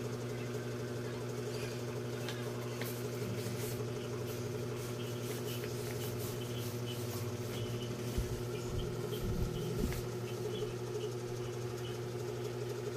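A steady low mechanical hum made of several constant tones, like a fan or small motor running, with faint ticks and rustles of paper and crayons being handled. A few soft low thumps come about eight to ten seconds in.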